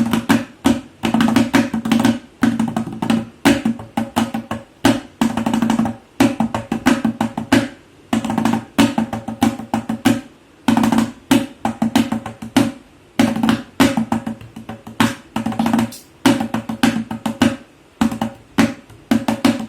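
Tabla being played: a fast, continuous run of sharp drum strokes with ringing pitched tones, grouped into phrases with brief gaps between them.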